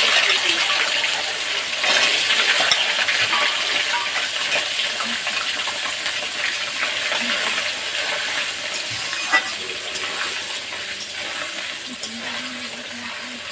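Hot oil sizzling in a steel kadai as coconut pieces fry with bay leaves and panch phoron, loudest at the start and slowly dying down, while a metal spatula stirs. A single sharp clink comes about nine seconds in.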